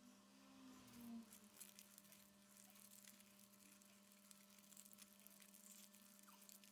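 Near silence: a steady low hum with faint scattered clicks.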